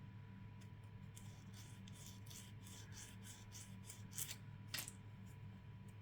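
Nail file scraping along the edge of a press-on nail in quick, faint strokes, about three a second, filing down the overhang; two louder strokes come a little past four seconds in.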